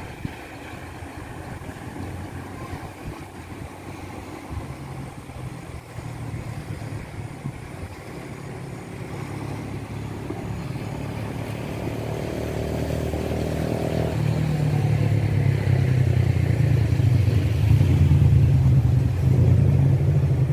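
A motor vehicle engine running and growing steadily louder through the second half, as if approaching, over the steady rush of the flooded, fast-flowing river.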